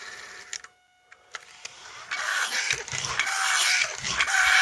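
Tonka pull-back toy car on carpet: a short rasp of the wheels dragged backward, then about two seconds in the wound spring motor whirrs as the car runs, with a faint whine that falls slightly as the spring unwinds. It works, but weakly.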